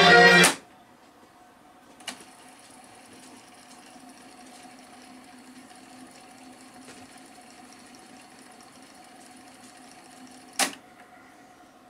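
Music playing from the tape cuts off about half a second in as stop is pressed. A click follows, and the Technics RS-M51 cassette deck's transport winds the tape in fast forward with a faint steady whir. A louder click near the end marks the transport stopping.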